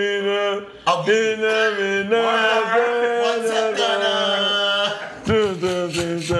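Male voices singing a slow, dramatic choir-like tune in long held notes, with brief breaks about a second in and again about five seconds in.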